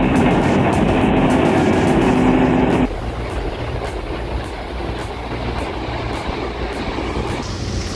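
Heavy tracked earthmoving machine's diesel engine running with steady track clatter; about 3 s in the sound cuts abruptly to a quieter, lower rumble of machinery.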